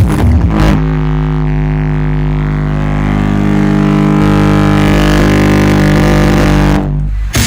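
Loud electronic music: a long, steady low drone with overtones, held for several seconds and cutting off abruptly near the end.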